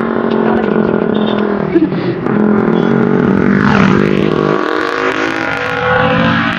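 Motor vehicle engine running close by, with a brief swoop in pitch about four seconds in.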